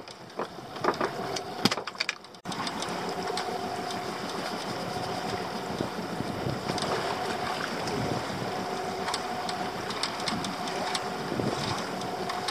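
Steady wind and sea noise around a small open boat, with a faint whirring tone and scattered light clicks that fit a spinning reel being wound in as a fish is played on a bent rod. The steady noise starts abruptly about two and a half seconds in.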